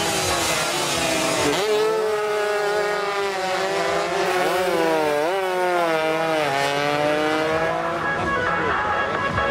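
Tuned two-stroke underbone race motorcycles revving hard, their engine pitch rising and falling again and again with throttle and gear changes.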